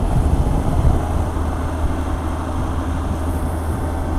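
Motorcycle cruising at highway speed: a steady drone of engine and road noise mixed with wind rushing over the microphone.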